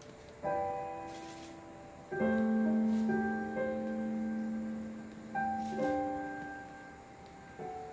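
Solo piano playing slow, soft chords, a new chord struck every second or two and left to ring and fade.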